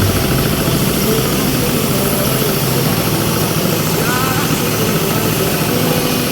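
A machine or engine running steadily, with a fast low rhythmic pulse.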